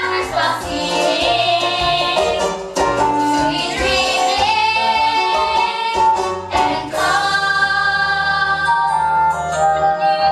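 Voices singing a musical-theatre song over instrumental accompaniment. About seven seconds in, the accompaniment changes to held chords over a steady bass.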